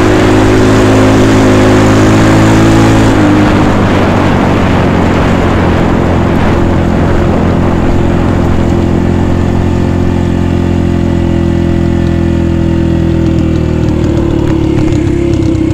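Dirt bike engine running under the rider, loud and steady; about three seconds in its pitch drops as the throttle eases, and it carries on at a lower, even note.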